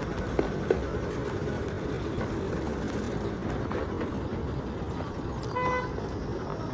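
Steady road traffic noise with two short knocks about half a second in, then a brief vehicle horn toot about a second before the end.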